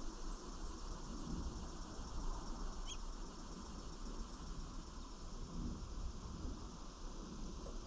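Steady outdoor background noise with a low rumble, and one brief, faint, rising bird chirp about three seconds in.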